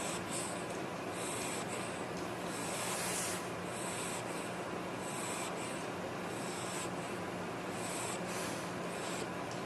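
A sleeping pet snoring: short, breathy snores repeating about every second and a half, over a faint steady hum.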